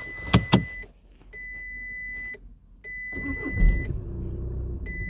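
A dashboard warning chime beeps steadily, one long beep about every one and a half seconds, over two sharp clicks from the ignition. About three seconds in, the 2011 Volkswagen Passat's 2.0 TDI four-cylinder diesel cranks, catches with a thump and runs. This car has a fault that lets it start and then cut out within seconds, with the engine control module reported as locked (fault code P1570).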